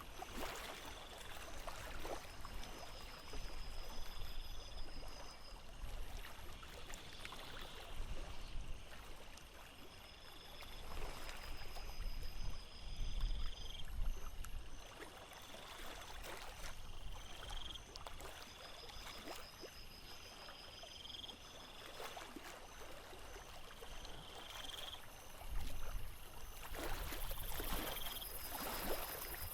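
Small waves lapping and splashing irregularly against a sailboat's hull. A high, pulsed trill and short rising chirps repeat every few seconds.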